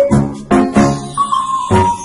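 Background music with a steady beat, about three beats a second, and a simple melody line.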